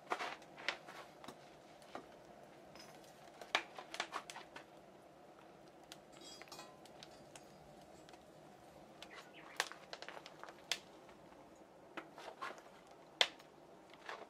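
Wood fire inside a train kiln firing at about 1200 °C: irregular sharp crackles and pops over a steady rush of burning, heard through an open side stoking port while a metal poker works in the opening.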